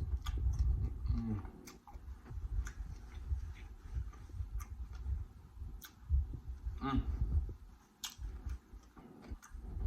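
Close-miked chewing and wet mouth sounds of someone eating saucy prawns, with scattered sharp clicks and a short voiced 'mm'-like sound about seven seconds in.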